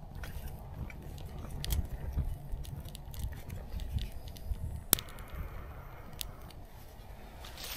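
Wood fire burning in a small steel folding stove, crackling with scattered pops and one sharp click about five seconds in, over a low wind rumble on the microphone.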